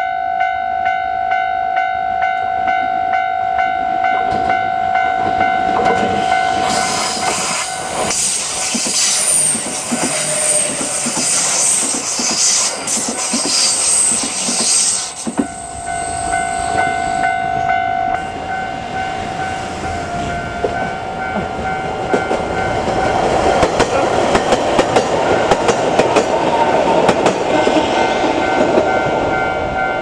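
Level-crossing warning bell ringing in a steady rhythm while a Kintetsu train passes, its wheels giving a high squeal for several seconds. After a break the bell rings again and another train runs through, growing louder toward the end with its wheels clattering over the rails.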